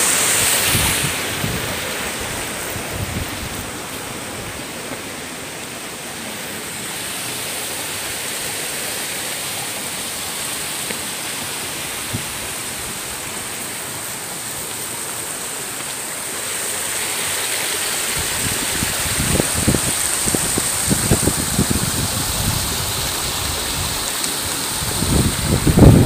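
Steady rushing of a rocky mountain stream. In the last third, wind buffets the microphone in uneven low gusts.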